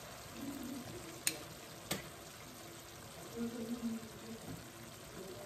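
Pasta being served from a frying pan with tongs. There is a faint steady hiss, and two sharp clicks of the utensils knocking on the dishes come about a second in and again half a second later.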